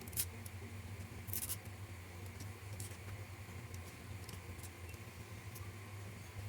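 Faint clicks and two short scraping or snipping sounds from small model parts and tools being handled, over a steady low hum.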